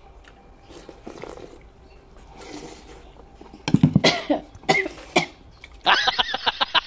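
A person coughing hard in a burst of four or five loud coughs about three and a half seconds in. Near the end, a different recording cuts in with a voice-like sound.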